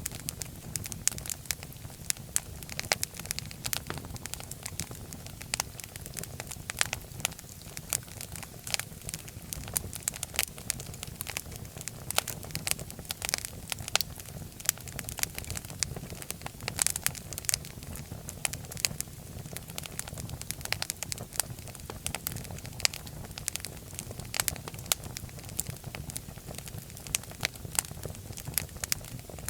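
Wood fire burning in a fireplace: a steady low rumble of flames with dense, irregular crackles and pops.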